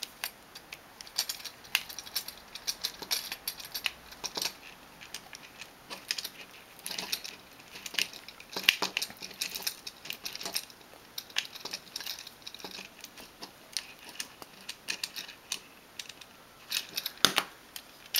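Small Phillips screwdriver turning a screw into a plastic 3D-printer print head housing, with irregular light clicks and scrapes of metal tool on screw and plastic parts being handled. A short run of louder clicks comes near the end.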